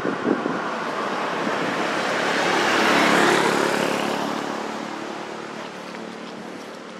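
A road vehicle passing by, its engine and tyre noise swelling to a peak about three seconds in and then fading away.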